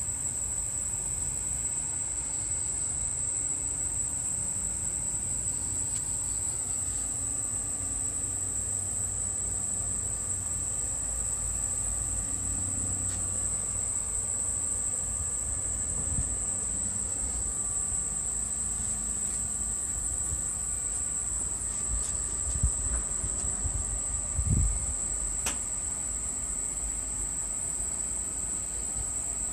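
Steady, unbroken high-pitched insect chorus, with a low rumble and faint hum underneath. A few brief low thumps and a click come about three-quarters of the way through.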